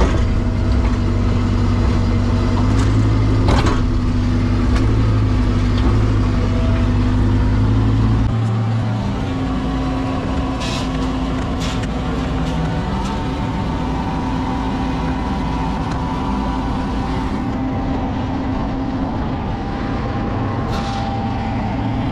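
Mini excavator engine running steadily, its note changing and the deep low end dropping away about eight seconds in, with a few sharp knocks along the way.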